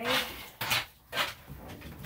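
Three short, sharp swishing noises as a soaking-wet small dog is handled in a bathtub, the sound of water being worked out of its coat.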